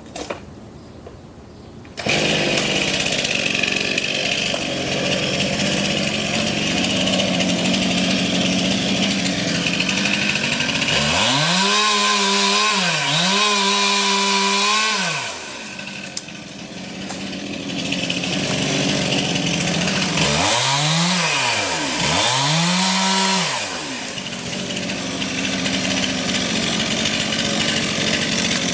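Chainsaw cutting into a large ash tree. It comes in loud about two seconds in, and twice, near the middle and again later, the engine is revved up high and held before dropping back.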